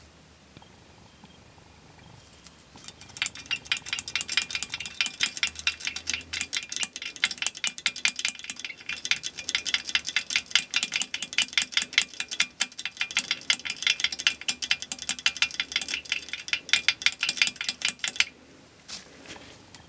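A rod stirring liquid in a small glass vial, clinking rapidly and rhythmically against the glass, several strikes a second with a light ringing. It starts about three seconds in and stops abruptly near the end.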